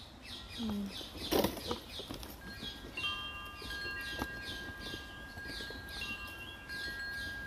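Birdsong: short falling chirps repeated about three times a second, joined from about two seconds in by several clear, steady, high ringing tones held for seconds, and one knock about a second and a half in.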